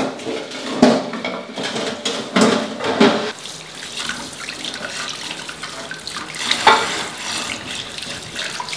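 Tap water running into a stainless steel sink bowl of eggs while they are scrubbed one by one with a sponge, with splashing and a few sharp knocks as the eggs are handled.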